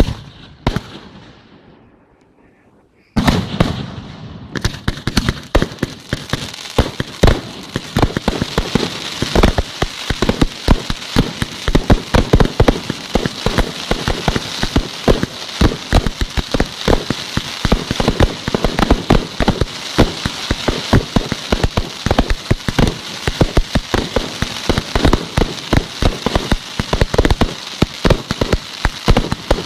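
Fireworks display: a few seconds in, a dense, continuous crackle of many rapid small pops sets in and keeps going, with louder sharp bangs scattered through it.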